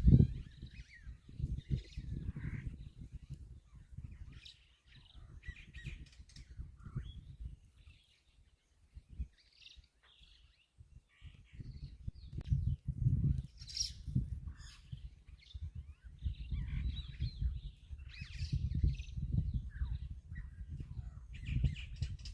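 Assorted birds giving many short, scattered calls over an intermittent low rumble that swells and fades, loudest in the first few seconds and again through the second half.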